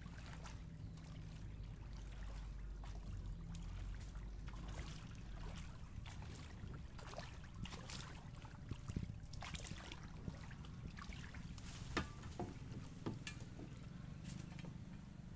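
A small canoe being paddled: the paddle splashing and dripping in the water, with a few sharp knocks in the second half, over a steady low rumble.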